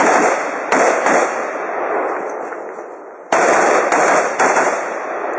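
Rifle fire during a timed match stage. About five shots come in two strings with a pause of about two seconds between them, and each sharp crack trails off in a long echo.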